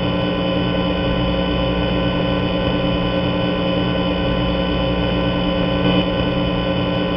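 A loud, steady droning tone made of many pitches at once, starting suddenly and holding unchanged, with a brief swell about six seconds in.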